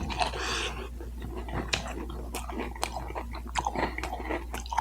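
Close-miked chewing of crispy boneless chicken wings: irregular wet mouth clicks and soft crunches.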